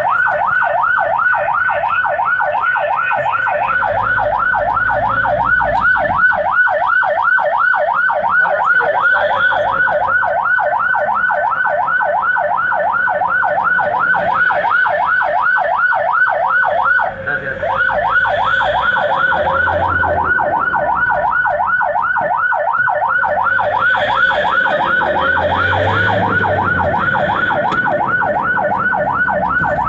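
Ambulance's electronic siren in a fast yelp, its pitch sweeping rapidly up and down several times a second, heard from inside the cab. It breaks off for a moment a little past halfway, then resumes.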